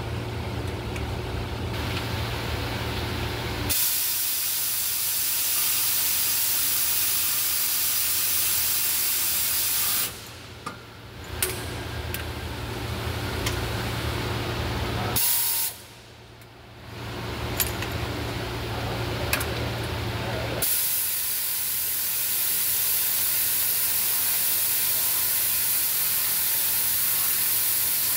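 Compressed air hissing from a pneumatic tool on an air hose, in long runs of several seconds with two short pauses. A low steady hum sounds underneath in the first few seconds and again in the middle.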